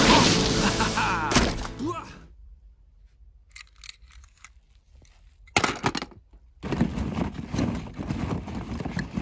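Music fading out over the first two seconds. After a short near-quiet gap, plastic play balls clatter and knock together as a hand digs through a plastic tub of them, beginning with a sharp burst about halfway in.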